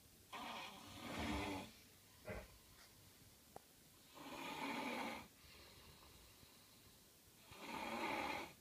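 A man snoring loudly in his sleep: three long snores about three and a half seconds apart, with a short sharp sound between the first two.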